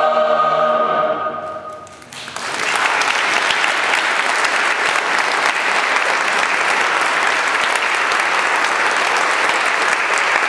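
A mixed choir holds its final chord, which fades away over about two seconds. After a brief hush, audience applause breaks out suddenly and goes on steadily.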